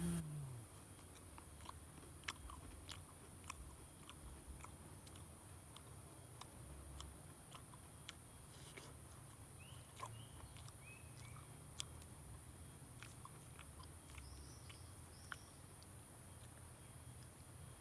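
A person chewing and biting crunchy food, heard as soft, scattered crunches and clicks.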